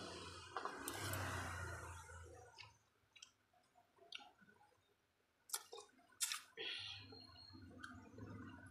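Quiet eating sounds of a hand mixing and scooping rice on a plate, with a soft hiss in the first couple of seconds. A little past halfway there are two or three sharp clinks of a metal spoon against the dish.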